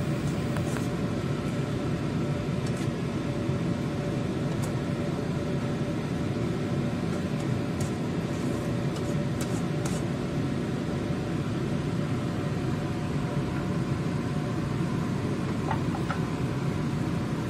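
Steady hiss and hum of vegetables cooking in a pan on the stove, with a few faint clicks.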